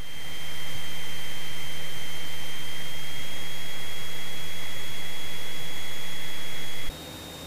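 Cessna 172 in flight: a steady drone of engine, propeller and rushing air, with a thin high whine over it. About seven seconds in the level drops abruptly to a quieter cabin drone.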